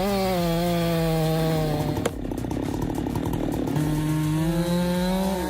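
Chainsaw engine running at high revs, its pitch rising at first. About two seconds in there is a sharp click and the steady whine turns rough and choppy for under two seconds, then the steady whine comes back.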